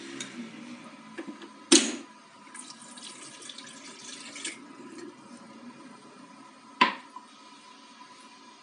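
Water poured from a glass into the top reservoir of a Brita Marella XL filter jug, splashing for about two seconds. There is a sharp knock shortly before the pour and another a couple of seconds after it.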